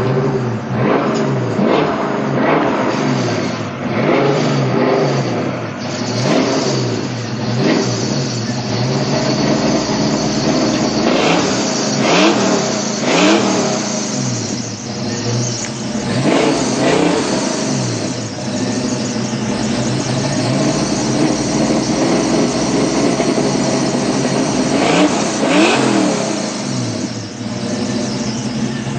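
1987 Mustang GT's supercharged 5.0 V8, fitted with a Paxton supercharger, running and being revved again and again, the pitch rising and falling with each blip. It is running on a supercharger belt that is bad.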